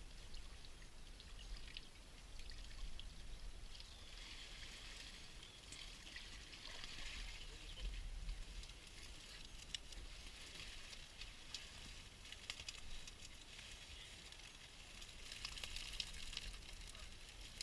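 Faint trickling and dripping water with many small clicks, swelling a little about four seconds in and again near the end.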